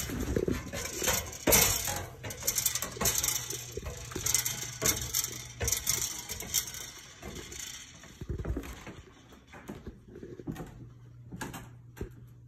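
Footsteps on bare wooden floor and stairs, with irregular knocks, scuffs and rustling as a handheld phone is carried and jostled. The clatter is busiest at first and thins out toward the end.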